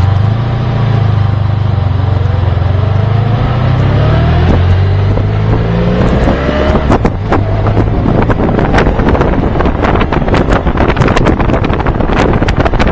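Honda VFR1200F V4 motorcycle engine accelerating hard under load, its pitch climbing. About seven seconds in, wind buffeting the microphone at high speed drowns it out.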